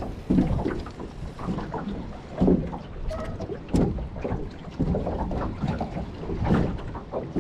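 Wind buffeting the microphone over water lapping and slapping against the hull of a small open boat, with a few short knocks of handling in the boat.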